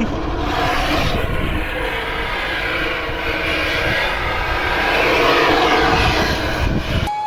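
A vehicle engine running with a steady drone that swells slightly and then cuts off abruptly just before the end.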